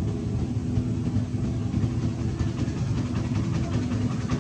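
Engine idling steadily: a low, even rumble with a constant hum, with faint clicks from about halfway through.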